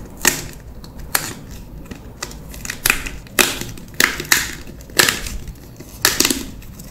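Perforated tear strip of a thin cardboard box being torn open by hand: a series of sharp tearing snaps, about a dozen, at uneven intervals.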